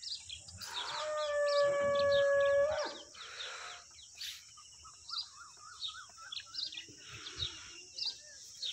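A goat bleats once, a long steady call of nearly two seconds about a second in, while small birds chirp over and over.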